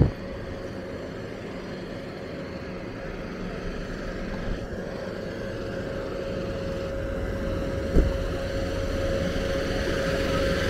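Engine of a compact tractor running steadily, growing louder as it draws closer. Two sharp thumps, one at the very start and one about eight seconds in.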